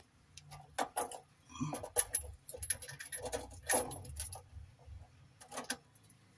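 Metal plumbing fittings clinking as a chrome shut-off valve and hose fitting are handled: an irregular run of sharp metallic clicks and taps that stops a little before the end.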